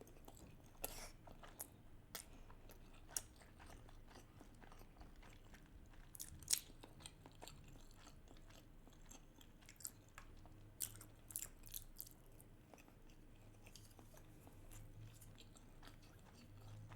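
Faint, irregular chewing of salmon sushi: quiet wet mouth clicks and smacks, with a few slightly louder ones about three, six and a half and eleven seconds in.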